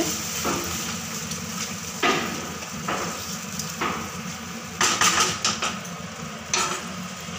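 Spatula stirring pointed gourds through thin korma gravy in a frying pan, scraping and tapping against the pan about half a dozen times, over a steady sizzle from the hot gravy.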